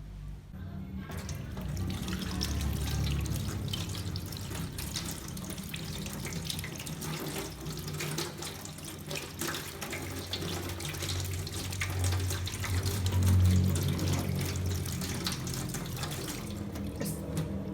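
Water tap running into a sink, water splashing over hands being washed, starting about a second in.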